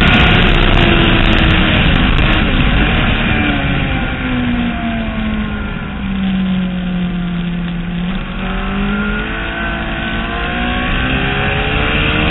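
Motorcycle engine heard onboard at speed on a race track, with a steady rush of wind: the engine note falls smoothly through the first half as the bike slows, then climbs steadily as it accelerates again.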